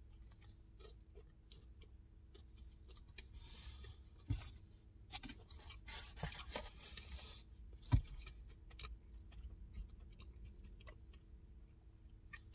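Close-up chewing of a mouthful of fried chicken sandwich, mixed with scattered crinkles of a foil sandwich wrapper being handled. Two sharper clicks stand out, about four and eight seconds in.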